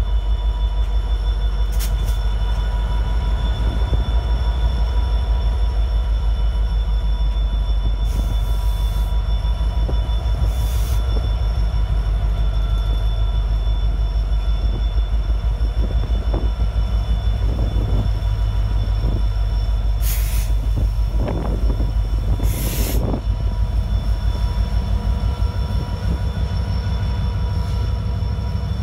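A pair of EMD SD75I diesel-electric locomotives rolling slowly past, their 16-cylinder two-stroke diesel engines running with a steady pulsing rumble under a steady high whine. Two short hisses come about two-thirds of the way through.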